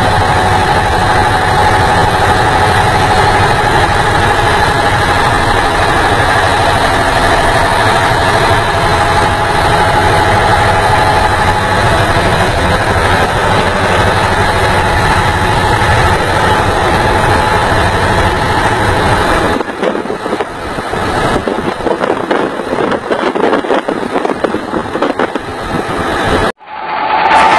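Cab interior of a 1961 FNM truck running at highway speed: the diesel engine droning steadily with a deep rumble and a high whine. About twenty seconds in the deep rumble drops away and a lighter, uneven rattling takes over. Near the end the sound cuts out briefly.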